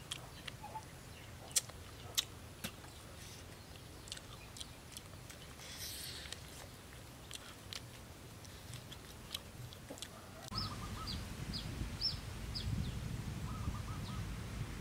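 Crunchy grilled fish bones being bitten and chewed: scattered sharp crunches and clicks. About ten seconds in, a series of short high bird chirps and a brief trill comes in over a steady low rumble.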